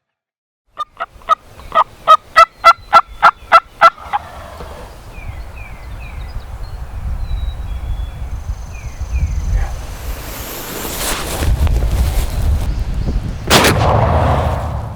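Wild turkey gobbling, a rapid rolling run of notes that grows louder, then wind rumbling on the microphone with faint small-bird chirps. A single loud bang comes near the end.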